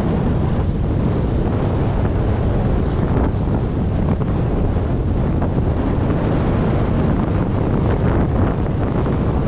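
Wind buffeting the microphone over the steady wash of small waves surging across a shallow reef edge.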